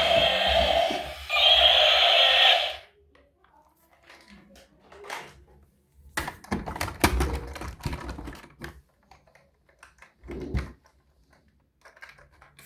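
A toy vehicle's electronic sound plays loud steady buzzing tones and cuts off suddenly about three seconds in. Scattered light clicks and knocks follow, from plastic toy vehicles being handled.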